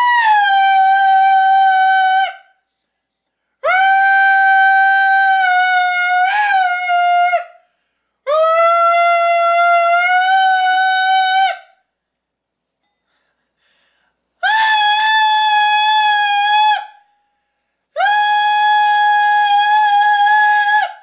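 A young man's voice singing loud, high held notes into a crystal wine glass, trying to hit the glass's resonant pitch and shatter it. Five steady notes of two to four seconds each with short breaths between; the first slides down slightly at its start, and the glass does not break.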